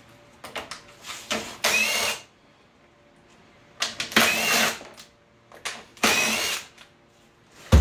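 Cordless drill-driver running in three short bursts, backing out the bolts that hold the engine's cover, with small clicks between the bursts and a sharp knock at the very end.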